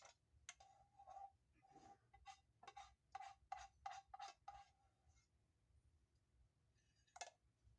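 Near silence, broken by a quick string of faint, short taps or clinks during the first five seconds and one more faint tap near the end.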